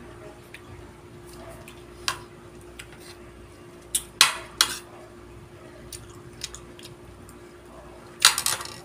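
Metal fork and spoon clinking and scraping against a plate while eating. A few scattered clinks, with longer scrapes about four seconds in and again near the end.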